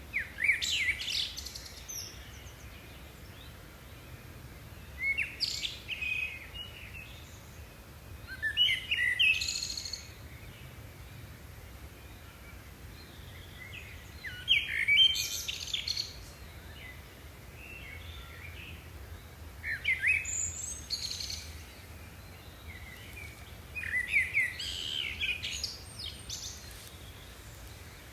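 Songbird singing short phrases of quick chirps and trills, one phrase about every four to five seconds, over a steady low background rumble.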